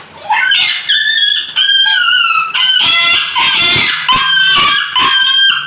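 American Bully puppy whining and crying in a string of high, drawn-out cries, one after another, with a few short yelps in between. It is in distress while held down for treatment of a dog-bite wound.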